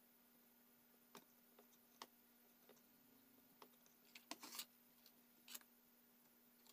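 Faint, scattered clicks and taps of small metal repair tools on a smartphone circuit board while its USB charging port is being desoldered, over a low steady hum.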